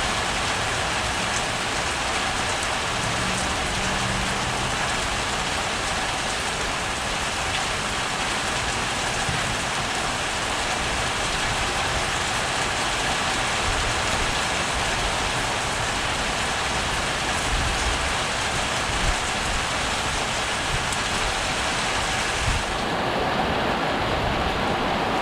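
Heavy rain pouring steadily during a thunderstorm. About three seconds before the end, the highest part of the hiss drops away suddenly.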